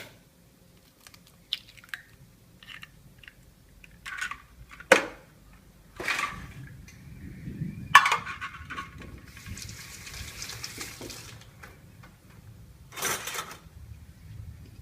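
Kitchen utensils and cookware knocking and clinking, a dozen or so separate knocks, with a hiss of about three seconds in the middle.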